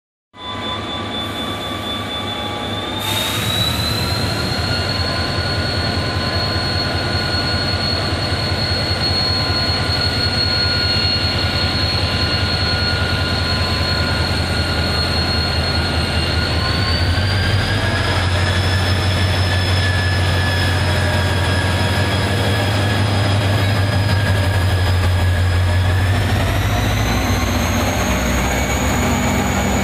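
Korail diesel-electric locomotive pulling away with a train: a steady low engine rumble under a high whine that steps up in pitch three times as it gathers power, growing louder as it draws level.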